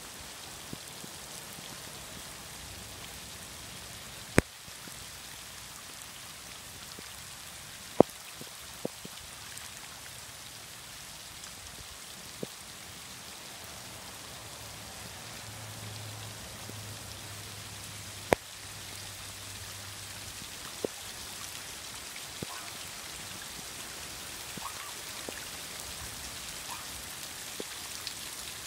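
Steady rain falling on shallow muddy floodwater, with a handful of sharp, loud taps from drops landing close by.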